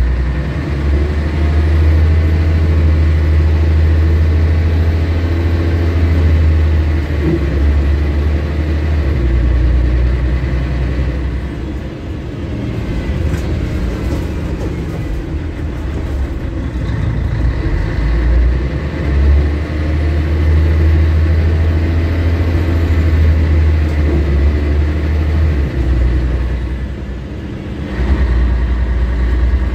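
Scania L113CRL bus's rear-mounted six-cylinder diesel engine, heard from the rear seats. It works hard for the first nine seconds or so, eases off, then pulls hard again from about eighteen to twenty-six seconds in. A faint high whine rises with each pull and falls away as it eases off.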